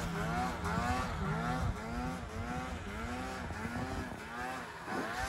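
Snowmobile engine revving up and down in quick pulses, about twice a second, as the rider carves through deep powder snow.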